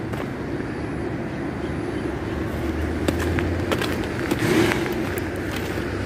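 Steady rumble of road traffic, swelling about halfway through as a vehicle passes, with scattered footsteps crunching on a gravel track.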